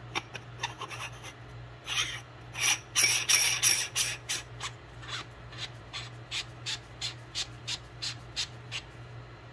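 A threaded fitting being turned by hand on an aluminium oil catch can, making short rasping scrapes. The scrapes are louder and closer together a couple of seconds in, then settle into an even run of about three a second.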